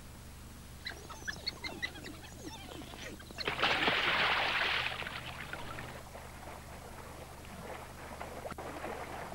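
African wild dogs giving short, high, bird-like twittering calls, then a loud rush of splashing water as a dog charges through a pool. Fainter splashes and calls follow.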